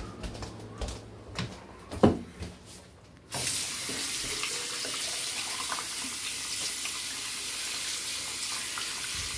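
A bathroom tap is turned on about three seconds in and runs steadily, water splashing. Before it come a few light knocks and one sharp thump about two seconds in.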